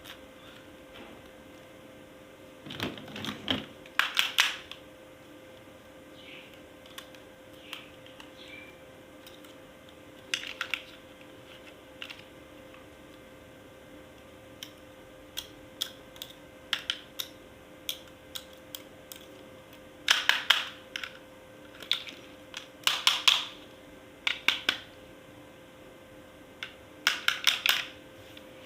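Hands handling hard plastic toy parts and packaging: irregular clusters of sharp clicks and rattles with short pauses between.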